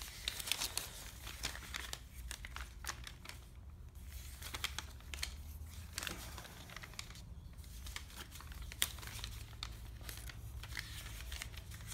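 Paper LEGO instruction booklet being handled, folded open and leafed through, giving irregular crinkling and rustling.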